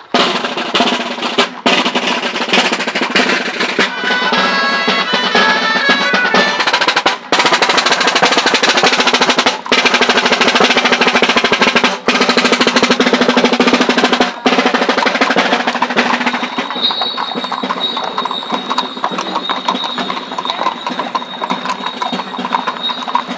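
Rope-tensioned wooden marching drum beaten with sticks in rolls and steady beats, with a short melody line heard briefly. About sixteen seconds in the drumming gives way to a lighter, steady clatter with a high ringing tone.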